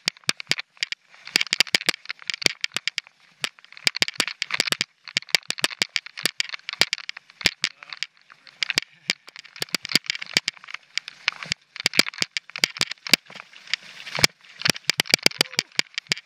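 Mountain bike rattling over a rocky dirt trail: a dense, irregular run of sharp clicks and knocks from the bike's parts and tyres striking rock, with patches of gravelly tyre crunch.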